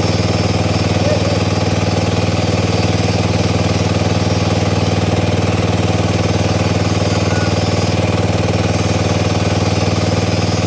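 Drilling rig's engine running steadily under load, with a fast, even hammering pulse throughout.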